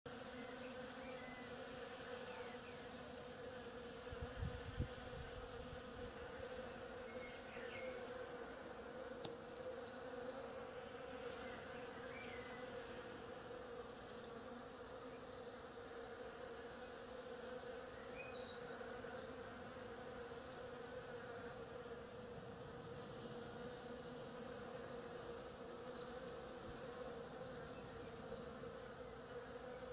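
Many bees buzzing together as they forage on the vine's blossoms: a steady, even drone. A brief low thump comes about four to five seconds in.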